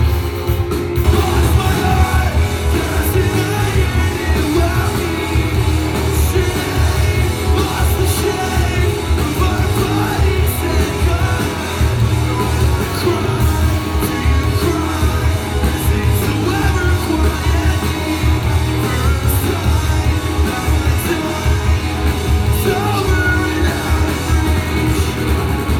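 Live rock band playing loud through the venue PA, with electric guitars, drums and a lead vocalist singing, heard from the crowd.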